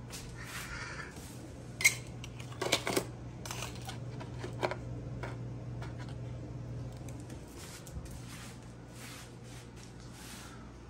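Sharp plastic clicks and clatters, loudest about two and three seconds in, as small plastic wet cat-food cups are handled over a plastic feeding tray, with softer rustling between them and a steady low hum underneath.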